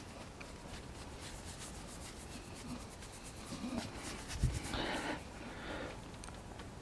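Faint rubbing and scuffing of a dog settling down to lie on a concrete garage floor, with a soft thump and scuff about four and a half seconds in.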